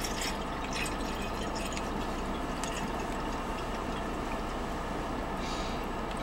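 Water poured in a thin stream from a plastic bottle into a stainless steel insulated water bottle, trickling steadily as it fills.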